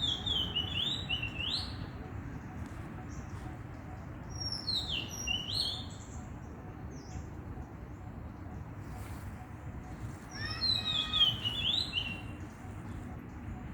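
A songbird singing in three short phrases of quick, sweeping high notes, a few seconds apart, the last phrase the loudest, over a steady low background rumble.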